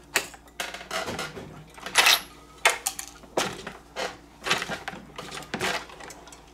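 Dillon 1100 progressive reloading press being worked by hand, cycling a 9mm case through its stations: an irregular run of sharp metallic clicks and clinks, one louder clack about two seconds in.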